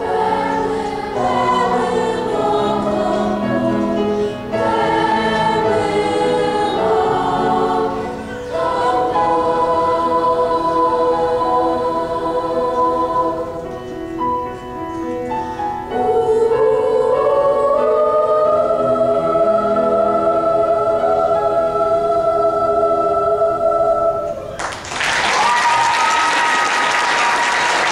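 Middle-school choir singing the closing phrases of a choral piece, ending on a long held chord. Applause breaks out as the chord releases, about three seconds before the end.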